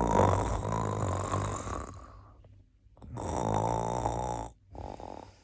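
A man snoring in sleep: three rattling snores, a long one that fades out, a second a little over a second later, and a short one near the end.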